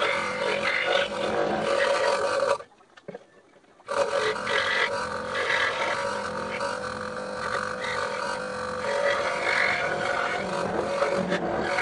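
Scroll saw running and cutting wood, a steady motor and blade drone with a constant low hum, broken by a sudden gap of about a second some three seconds in before it resumes.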